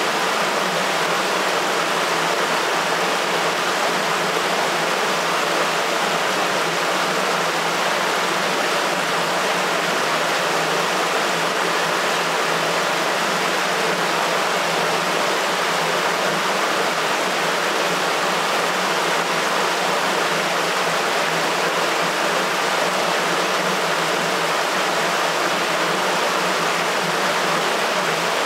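Water rushing through a sewer channel: a steady, unbroken rush of flowing water.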